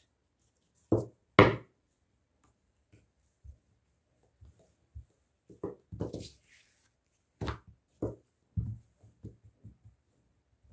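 Wooden rolling pin knocking and being set down on a plastic-covered countertop while hands handle a rolled-out strip of dough. There are separate knocks and thuds, the two loudest about a second in, then a scattered run of lighter taps and clicks, with a brief rustle around six seconds in.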